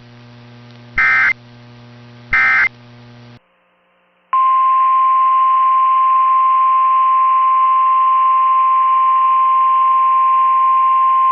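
The last two short warbling data bursts of an Emergency Alert System end-of-message signal, about a second apart, over a low hum. After a moment of near silence, a steady single-pitch EAS attention tone starts about four seconds in and holds.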